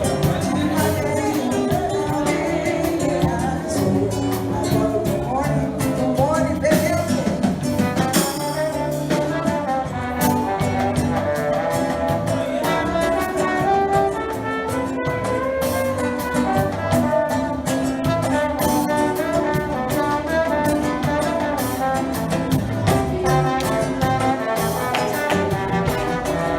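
Music: pitched instruments holding melody and chords over a steady beat.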